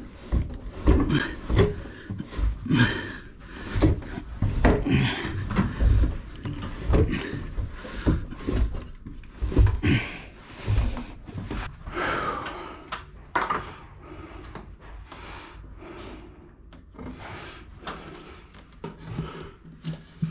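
Electrical cable being pulled and rubbed through wooden framing, with irregular knocks and handling thumps against the wood. The knocking is dense for most of the first two-thirds and then thins to quieter rubbing.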